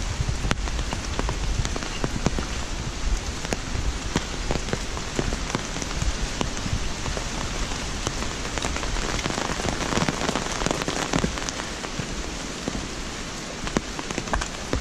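Steady rain falling on leaves and paving, with many sharp individual drops pattering close by. A low rumble sits under it for the first half and then dies away.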